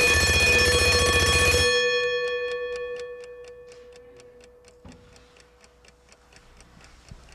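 Wind-up mechanical alarm clock ringing, its bell hammered rapidly, then stopped by hand about two seconds in. The bell's tone rings on and dies away over the next few seconds while the clock ticks steadily, about four ticks a second.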